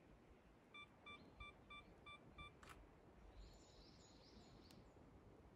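A camera's self-timer beeping six times, short even beeps about three a second, followed straight away by the click of the shutter. A bird chirps faintly afterwards over near-silent woodland.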